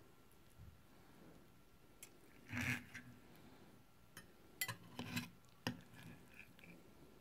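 Metal knife and fork clinking and scraping against a ceramic plate while cutting a soft omelette: a scattering of light clinks, with a longer scrape about two and a half seconds in.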